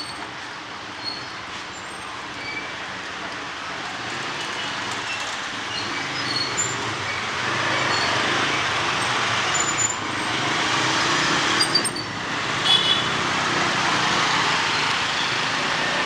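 Street traffic on a rain-wet road: vehicles passing close by with a rising and swelling rush of tyre and engine noise, and a short horn beep about thirteen seconds in.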